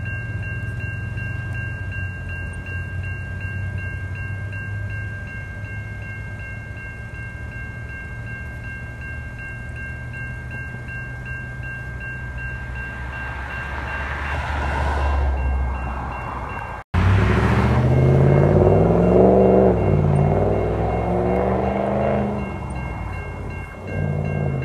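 Railroad crossing warning bell ringing steadily over the low rumble of a freight train at the crossing. About two-thirds of the way in, after a brief dropout, a louder train sound with low tones that rise and fall takes over.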